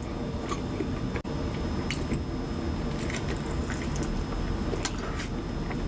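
Close-miked mukbang eating: wet chewing and squishing mouth noises as a large burrito is bitten and chewed, over a steady hiss, with a few short clicks.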